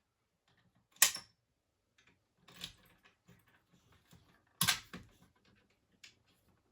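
Sharp clacks from a fire alarm pull station being handled and worked: a loud one about a second in, a smaller one near the middle, and another loud one about four and a half seconds in, with light clicks and rattles between. No alarm sounds.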